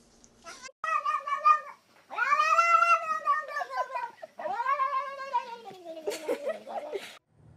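A domestic cat yowling: three long, drawn-out meows in a row, the middle one about two seconds long, the last sliding down in pitch near the end.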